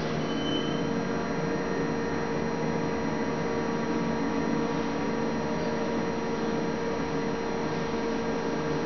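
ThyssenKrupp roped hydraulic elevator travelling up, its hydraulic pump unit running with a steady hum and a held mid-pitched tone.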